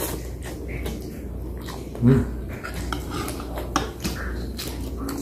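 Metal fork clinking and scraping on a plate while eating noodles, with many short clicks. A brief louder low sound about two seconds in, over a steady low hum.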